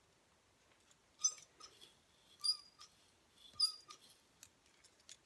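Three short squeaky clicks about a second apart, with a few fainter ticks, from the spring clamp of a Hot Shot Tools 1.5-inch titanium curling iron as it is opened and closed on sections of hair.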